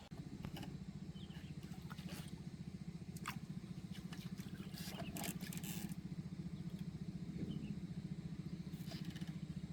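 A small engine running steadily with a fast, even putter, with scattered light clicks and taps over it.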